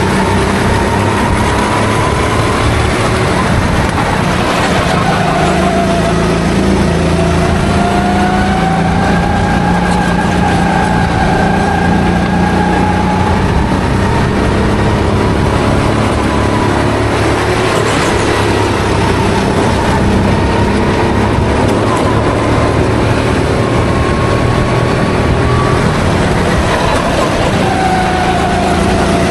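Rental racing kart's engine heard onboard at racing speed, its pitch slowly rising and falling as the kart accelerates and slows through the corners, over steady wind and tyre noise.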